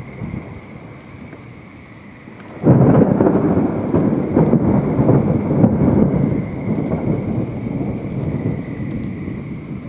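Thunder during a thunderstorm, over steady rain. A loud clap breaks suddenly about two and a half seconds in, then rolls on as a rumble that slowly fades.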